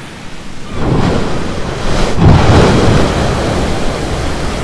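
Ocean waves crashing on rocks: a deep, noisy rush of surf that swells about a second in and peaks with a second, louder crash just after two seconds.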